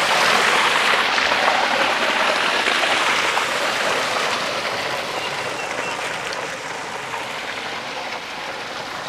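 Water rushing and splashing in a farm irrigation channel below a pump-fed concrete tank, a steady hiss that slowly grows fainter.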